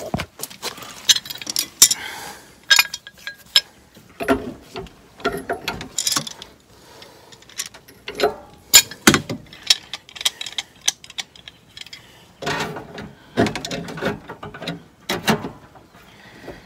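Pipe wrench and tongue-and-groove pliers clicking and scraping on metal as a threaded gas pipe is tightened into a pool heater's gas valve. Irregular sharp clicks and short rasps, the sharpest about nine seconds in.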